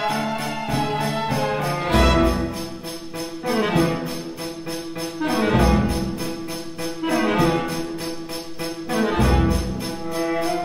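Orchestral music with brass over a steady, fast rhythmic pulse, swelling into heavy low accents about every three and a half seconds.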